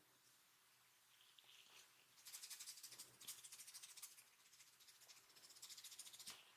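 Faint, fast rustling and scratching of a masseur's hands rubbing over the client, many quick strokes starting about two seconds in.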